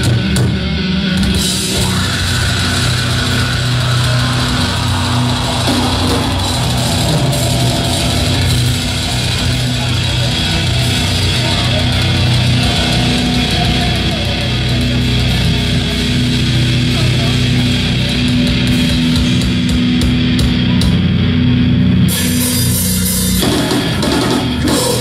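Live heavy metal band playing electric guitars, bass and drums at full volume, heard from the audience in a small club. Near the end the full band stops and a chord is left ringing out.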